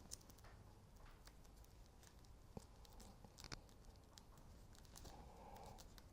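Near silence with a few faint, scattered clicks and rustles of small parts being handled.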